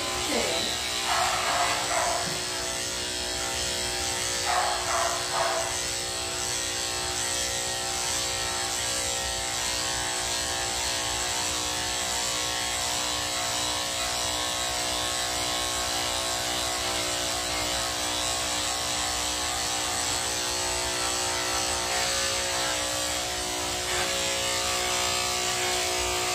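Electric pet hair clippers running with a steady hum while shaving a schnauzer's coat.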